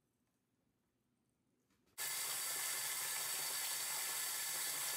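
Near silence, then about two seconds in a sink faucet suddenly starts running in a steady stream of water onto a photographic print lying in a tray. This is the running-water wash of the print after fixing.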